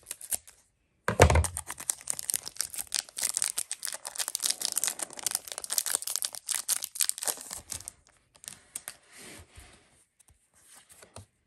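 Foil wrapper of a Pokémon booster pack crinkling loudly as it is cut with scissors and pulled open. Near the end it turns to quieter rustling as the cards are slid out.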